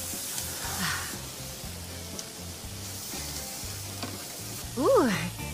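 Pieces of marinated chicken sizzling as they are laid with tongs on a hot oiled grill, under background music with a steady low beat. A brief tone that rises and falls in pitch, about five seconds in, is the loudest sound.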